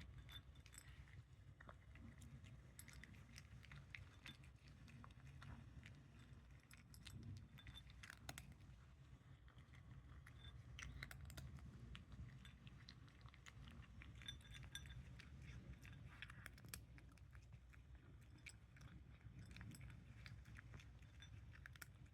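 A cat crunching dry kibble: many small, irregular crunches and clicks, faint, over a low steady room hum.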